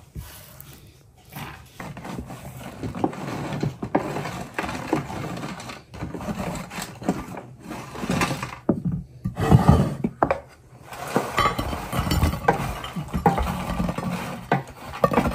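A spatula scraping and knocking in a baking tray as baked pieces are cut loose and slid off onto a plate: irregular scrapes and clicks, loudest about nine seconds in.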